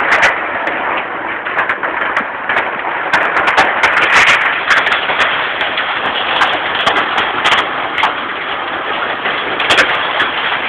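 Heavy downpour of rain with small hail: a loud, steady hiss with many sharp, irregular clicks of hailstones striking.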